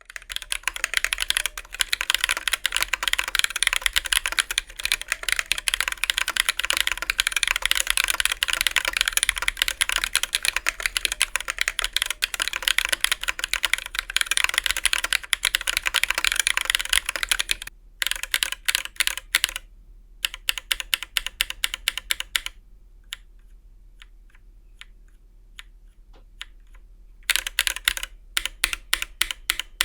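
Typing on a TMOv2 50% custom mechanical keyboard with tactile switches. A fast, dense run of keystrokes lasts about eighteen seconds and gives way to slower, scattered presses. After a pause of a few seconds with only a couple of taps, fast typing starts again near the end.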